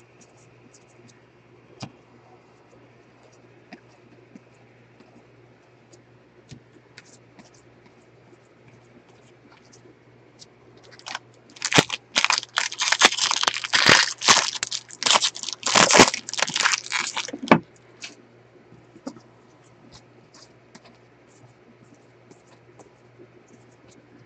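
A foil wrapper of a 2020 Bowman baseball card pack being torn open and crumpled: loud crackling for about six seconds starting about halfway in. Before and after it, faint clicks of cards being handled.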